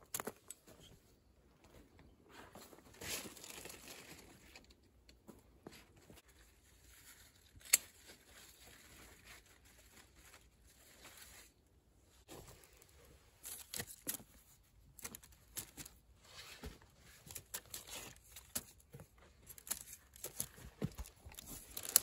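Luffa vines and leaves rustling and crinkling as gourds are handled and cut with hand snips, with scattered light clicks and one sharp click a little under eight seconds in.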